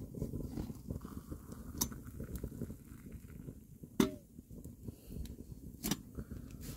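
Hot water poured from a cast-iron kettle into a wooden cup while a wood stove crackles and pops close by. There are a few sharp pops, and about four seconds in a metal clink that rings briefly.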